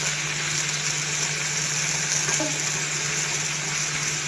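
Chopped onions, tomatoes and chillies frying in hot olive oil in a kadai, a steady sizzle over a faint low hum.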